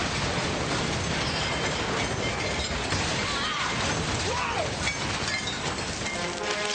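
Action-film trailer sound effects: a dense, continuous din of crashing and shattering debris, with two brief wavering high sounds near the middle.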